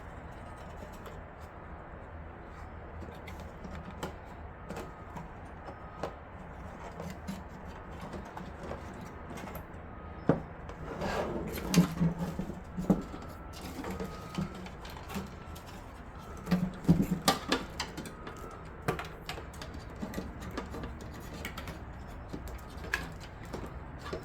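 Power cables and small plastic and metal parts being handled and plugged in inside a PC case: scattered clicks, light knocks and rubbing, busiest about halfway through, over a faint steady hum.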